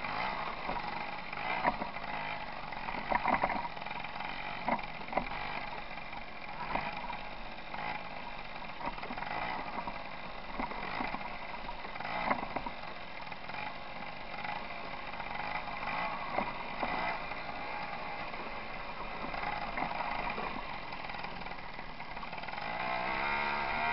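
Tomos moped's small two-stroke engine running while riding over a gravel track, with scattered knocks and rattles from the bumps. The revs rise near the end.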